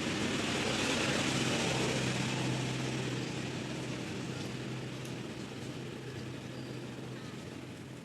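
A motor vehicle going past: a rushing noise with a steady low hum that swells over the first couple of seconds, then slowly fades away.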